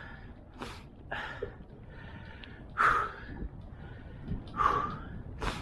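A man breathing hard in a handful of heavy, breathy exhales spread a second or so apart, out of breath from hauling a heavy find up on a magnet-fishing rope.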